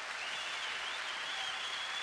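Applause-like steady hiss, slowly fading, with a faint wavering high tone recurring about once a second.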